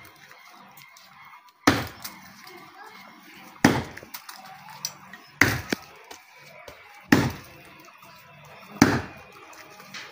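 Axe chopping into the trunk of a standing tree: five sharp blows, one about every second and a half to two seconds, each a brief crack of the blade biting into green wood.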